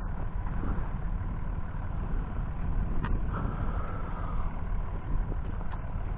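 A vehicle engine running steadily with a low rumble, and a couple of sharp clicks.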